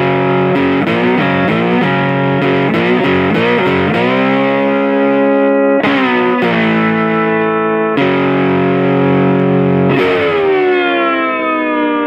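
Intro music on distorted electric guitar: a run of quick chopped chords, then long chords struck about every two seconds and left to ring, the last one sagging slightly in pitch.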